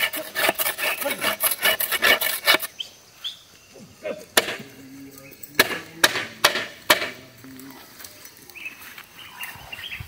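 Metal plough clattering and scraping as it is handled and shifted over grassy soil: a quick run of clicks and rattles for the first couple of seconds, then several separate sharp knocks.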